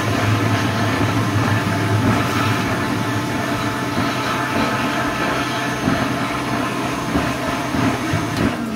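Build-A-Bear stuffing machine running, its blower pushing fluffy stuffing through the metal tube into a plush toy: a steady rushing of air over a low hum, which shuts off at the very end.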